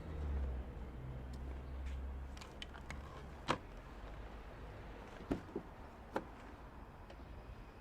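Quiet street ambience: a low traffic rumble that fades out a couple of seconds in, then a few scattered sharp clicks and knocks over a faint steady background.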